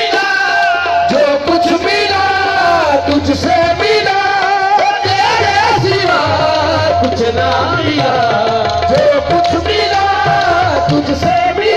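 Qawwali played live and loud: sung melody over a held steady note, with tabla.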